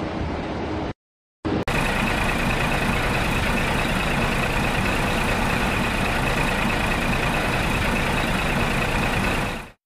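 A steady motor-vehicle-like running sound. It cuts out abruptly for about half a second, about a second in, then runs again and cuts off just before the end.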